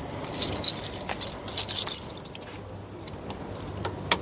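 Light metallic jingling and clinking for about two seconds, followed by a few soft clicks and one sharp click near the end.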